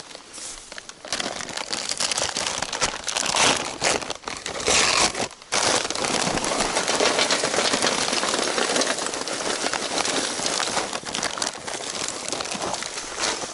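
Crinkling and rustling of a charcoal bag being handled and tipped, in broken bursts at first, then steady from about six seconds in.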